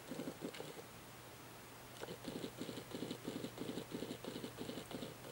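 Camera lens autofocus motor hunting in macro mode, a rapid run of soft ticks about four a second. The ticks stop for about a second, then start again as the focus keeps searching.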